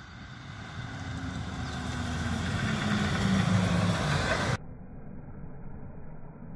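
An engine running and growing steadily louder, then cutting off suddenly about four and a half seconds in, leaving a muffled low rumble.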